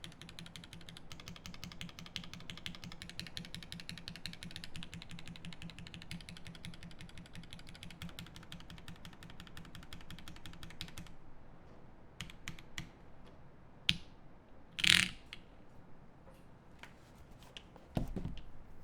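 Fast, continuous typing on a Swift65 prototype mechanical keyboard with lubed Lavender switches on an aluminium plate and GMK keycaps. The typing stops about 11 seconds in, leaving a few scattered key clicks, a louder short rustle near 15 seconds and a low thump near the end.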